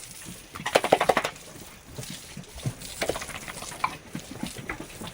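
Pigs grunting in a short, loud pulsing burst about a second in, followed by scattered knocks and clatter.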